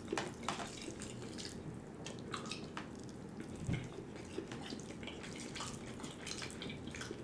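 Close-miked eating: soft, irregular wet mouth clicks and smacks of chewing food.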